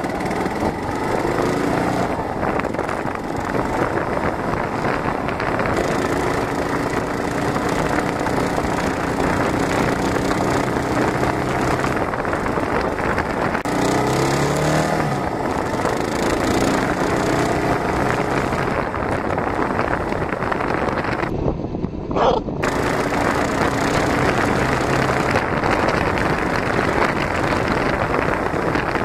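Kawasaki KLR650's single-cylinder four-stroke engine running under way, with heavy wind rushing over the handlebar-mounted phone's microphone. The engine pitch rises twice as the bike accelerates, once near the start and once about halfway through.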